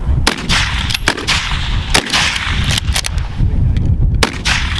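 Rapid fire from several service rifles on a firing line: a dozen or so sharp shots at uneven spacing, some nearly together, each with an echoing tail, over a steady low rumble.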